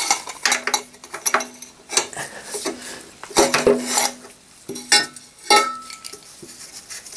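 Metal clinks and knocks of a combination spanner and loose nuts against the car's front chassis as the nuts holding the upper leaf spring are undone. The knocks are irregular, and some ring briefly.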